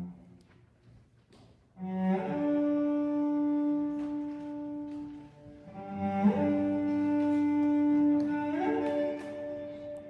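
Cello and fiddle playing slow, long held notes, sliding up into each new note. The first two seconds are nearly silent before the bowing comes in.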